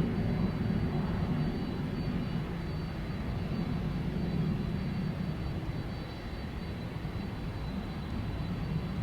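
Jet noise of a UPS McDonnell Douglas MD-11F three-engine freighter arriving, a steady low rumble fading slowly after its loudest moment, with a faint high whine above it.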